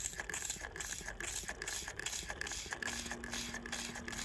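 Trigger spray bottle of LA's Totally Awesome cleaner squirted rapidly into a small glass cup, about three squirts a second, each one a short spitting hiss of liquid hitting the glass.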